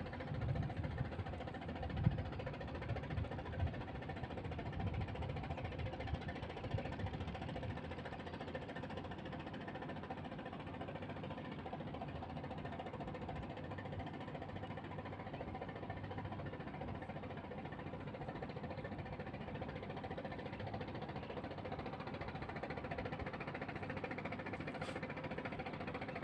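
An engine running steadily, with some low knocks and bumps in the first few seconds.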